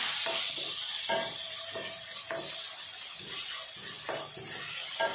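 Chopped onions and tomatoes sizzling in oil in a stainless steel kadai, with a steady hiss. A wooden spatula stirs and scrapes them against the pan in irregular strokes.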